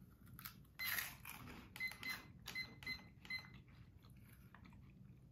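Crunching of hot cheese puffs being chewed: a run of irregular short crunches that die away after about three and a half seconds.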